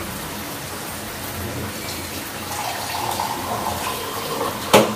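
Water running from a tap into a steel tumbler, followed by a sharp knock near the end.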